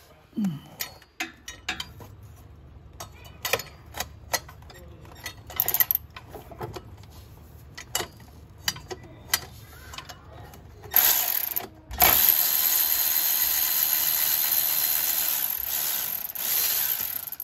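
Sharp ratcheting clicks as a bolt on the transmission pan is worked loose. About eleven seconds in, a power ratchet runs steadily for about six seconds, spinning the pan bolt out.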